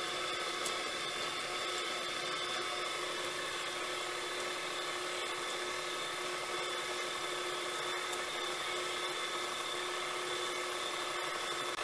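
Electric mixer running at a steady speed, its wire whisk beating chocolate batter in a stainless steel bowl: an even motor whine with several held tones.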